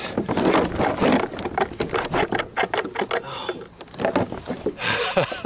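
Rapid, irregular knocks and rattles as a big blue catfish is wrestled aboard a plastic fishing kayak, with the fish and gear bumping against the hull.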